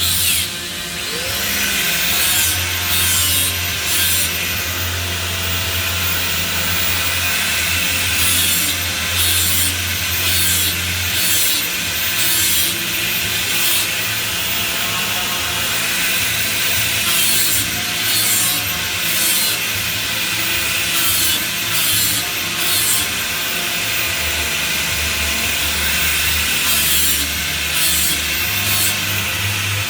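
Flux-cored arc welding on pipe: the arc crackles and sizzles steadily, growing brighter in spells every second or two.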